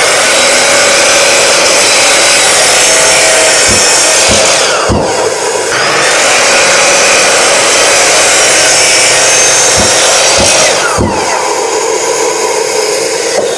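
Power miter saw running and crosscutting poplar boards: a loud, steady saw noise that dips twice, about five seconds in and again near eleven seconds, as the motor winds down and spins back up between cuts, with a few low thuds around each dip.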